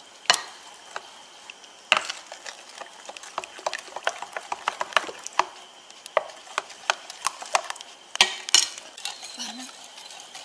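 A spoon stirring thin batter in a glass mixing bowl, with irregular clicks and knocks as it strikes and scrapes the glass. Sharper knocks come about two seconds in and twice near the end.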